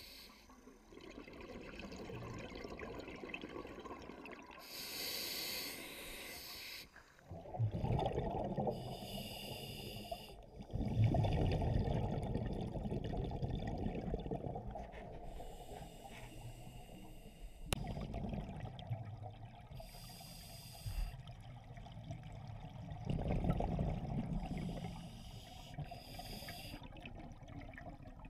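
Scuba diver breathing through a regulator underwater: several short hissing inhalations through the demand valve alternate with louder, low bubbling exhalations.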